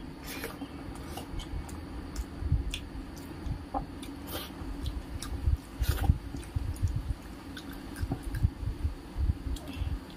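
Close-up chewing of a mouthful of rice and dal eaten by hand, with irregular soft thumps and small sharp mouth clicks.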